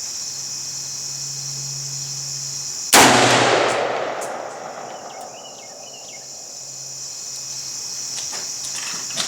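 A single .30-06 rifle shot about three seconds in, its echo rolling away over about two seconds, over a steady buzz of insects.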